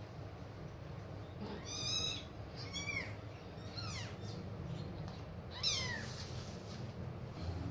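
Kitten mewing: four short, high-pitched mews, each falling in pitch, over a low steady hum.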